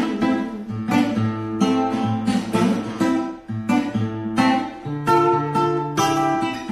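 Acoustic guitar strumming chords in a lilting chacarera rhythm, an instrumental passage with no singing.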